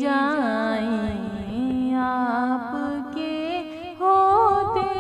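A woman's voice singing a naat melody in long, drawn-out notes with wavering ornaments. It grows louder about four seconds in.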